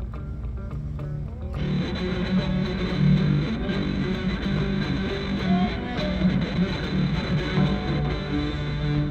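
Electric guitar playing rock music with a band backing; quiet held notes at first, then the full band comes in, louder and fuller, about a second and a half in.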